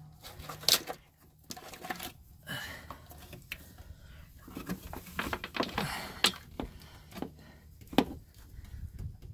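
Hands working a golf cart controller's wire harness and plastic plug connectors: scattered sharp clicks and rattles, the loudest about a second in and near the end.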